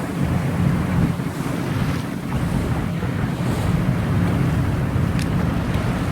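Waterfall pouring into the sea and surf: a steady wash of rushing water, with strong wind buffeting the microphone as a low rumble.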